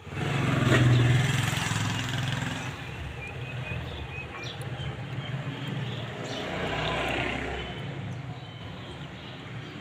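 Motor vehicle engine passing, loudest about a second in and fading, with a second swell of low engine rumble around seven seconds in.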